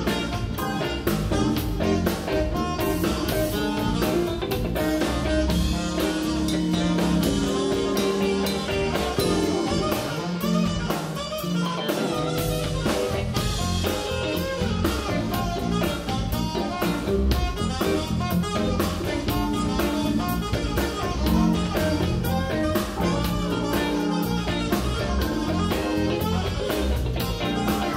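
Live band playing a soul-jazz instrumental on electric guitar, keyboard, electric bass and drum kit, with a steady groove throughout.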